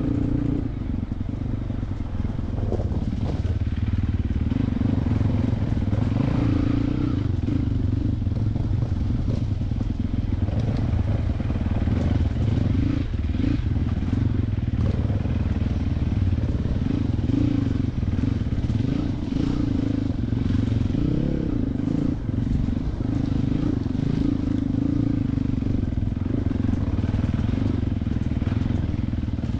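Sherco 450 enduro motorcycle's four-stroke single-cylinder engine, heard from the bike itself, running hard along a rough trail with the revs rising and falling as the throttle opens and closes. Scattered knocks and clatter come from the bike over rough ground.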